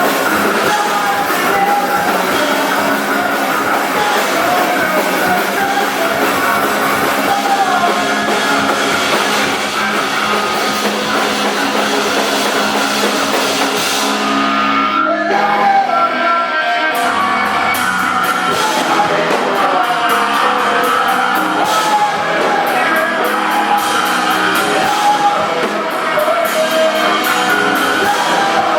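Live math-rock/punk band playing loudly with electric guitars, bass and drum kit. About halfway through, the drums and cymbals drop out for a couple of seconds while the guitars hold, then the full band comes back in.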